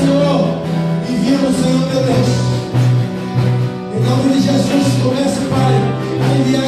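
Worship music with singing, over guitar and a bass line that plays short repeated notes.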